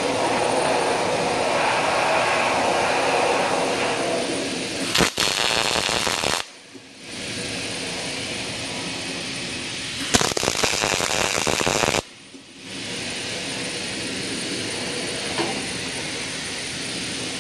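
Two MIG tack welds, one about five seconds in and one about ten seconds in, each a loud crackling arc lasting one and a half to two seconds that cuts off sharply. They fasten a wheel's washer onto its axle peg. A steady background noise runs under them.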